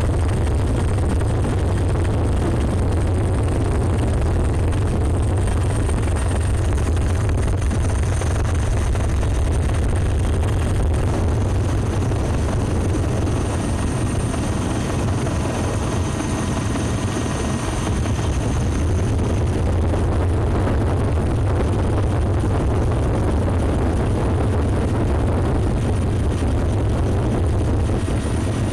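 Helicopter engine and rotor noise heard from on board in flight: a steady, loud, deep drone with a thin high whine above it.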